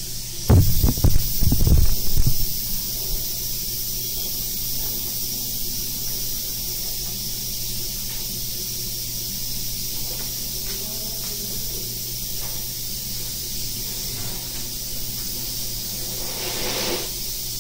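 Steady hiss of compressed air from a spray-in bedliner spray gun and its air line. A few knocks and bumps come in the first two seconds, and a louder spray burst swells briefly near the end.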